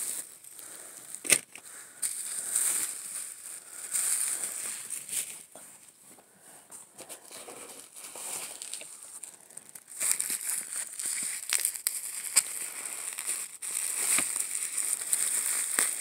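Bubble wrap and plastic packing material crinkling and rustling as hands dig through a cardboard shipping box, with scattered sharp crackles. It gets louder about ten seconds in.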